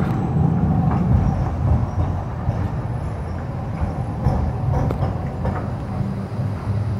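Articulated low-floor tram running past on street tracks through a curve: a steady low rumble of wheels on rail, with a few short clicks and knocks from the track.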